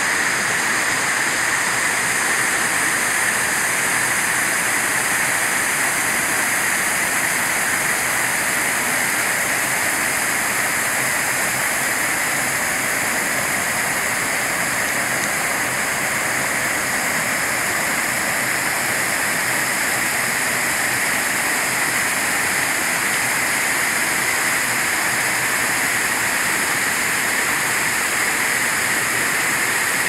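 Mountain waterfall cascading down a steep rock face into a rocky stream: a steady, unbroken rush of falling water.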